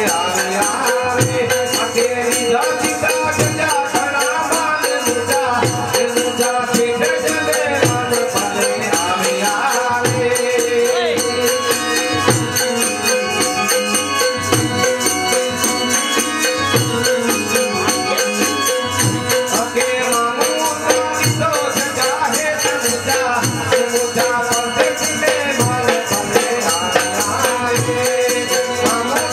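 Live Kutchi Sindhi folk music: a harmonium holding a steady drone under a wavering melody, with a hand-held jingle-ring tambourine shaken in rhythm and a drum beating steadily underneath.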